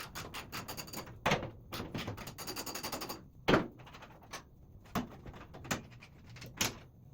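Ratchet wrench clicking rapidly as bolts are worked loose on a wheelbarrow, then several sharp metal knocks. The loudest knock comes about halfway through.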